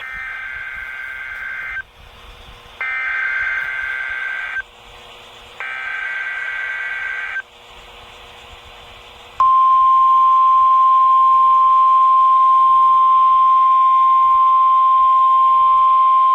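NOAA Weather Radio Emergency Alert System alert: three short bursts of SAME digital header data, a screechy two-tone warble, each about two seconds long with about a second between them. A little past halfway the steady, single-pitched Weather Radio warning alarm tone begins and holds.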